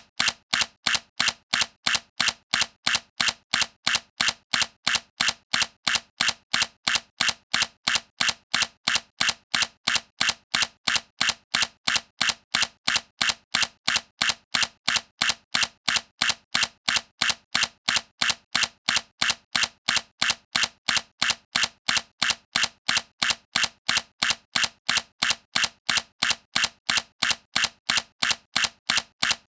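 Sony A7C mirrorless camera's shutter firing over and over in a rapid, even run of sharp clicks.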